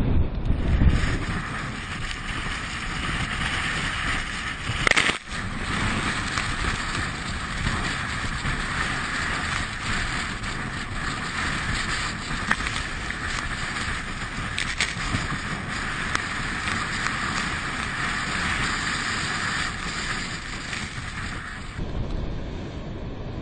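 Storm wind buffeting the microphone over heavy surf breaking on rocks, a steady rushing roar. There is one sharp bang about five seconds in, and the sound changes abruptly about a second in and again near the end.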